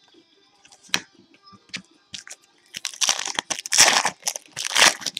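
Plastic wrapper on a pack of hockey cards being torn open and crinkled, in sharp rustling bursts: one about a second in, then a dense run in the last two seconds.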